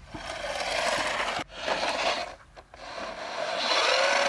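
Battery remote-control toy car driving over dirt and grit: its small electric motor whines and changes pitch as the wheels scrape and rasp over the ground. The sound cuts off abruptly about a second and a half in and drops away again briefly in the middle.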